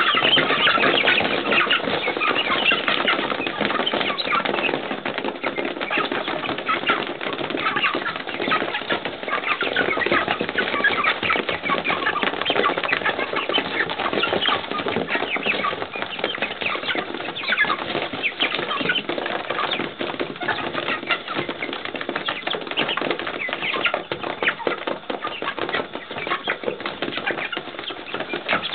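A flock of pullets mobbing their feed: a continuous dense scuffle of wings flapping and birds jostling and pecking, with scattered chicken calls.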